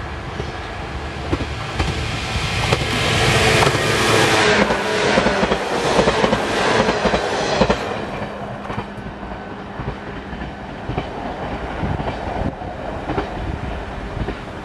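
JR 107 series electric local train running past, its wheels clattering over the rail joints. It grows louder, is loudest for a few seconds about four to eight seconds in, then fades away into a low hum.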